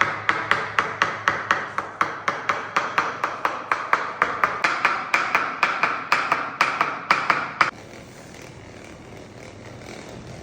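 Rapid, evenly spaced tapping, about four to five sharp strikes a second, that stops abruptly near the eighth second and leaves only a faint steady background.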